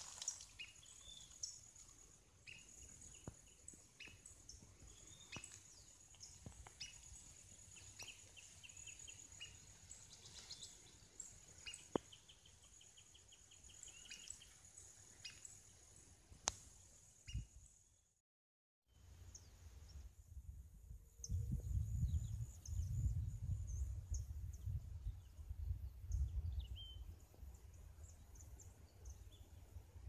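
Small birds chirping, with one short rapid trill, over a steady high whine. About two-thirds of the way in the sound drops out briefly, then a low rumble of wind on the microphone sets in with a few faint chirps.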